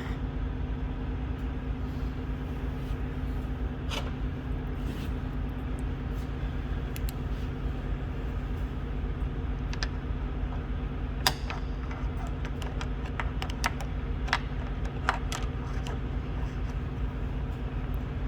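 Scattered sharp metallic clicks and taps from the door's lock linkage as the loose key-cylinder rod is worked back into its clip, the loudest about eleven seconds in. A steady low engine hum runs underneath.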